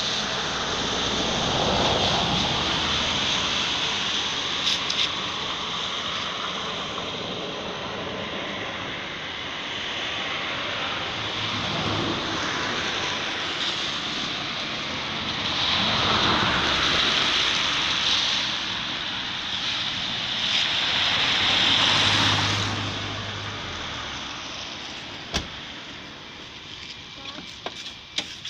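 Steady hiss of rain falling, swelling louder and fading back about two, twelve, sixteen and twenty-two seconds in. A few sharp clicks near the end.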